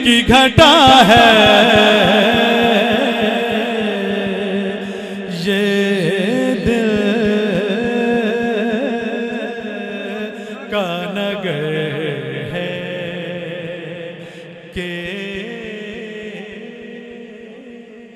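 A man singing a Punjabi naat solo into a microphone, in long, wavering drawn-out notes over a steady held tone, amplified through a sound system. The phrase fades away over the last few seconds.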